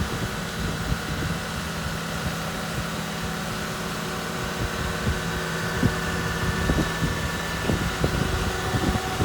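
Cat C7.1 diesel engine of an asphalt paver running steadily at idle, with a few brief knocks in the second half.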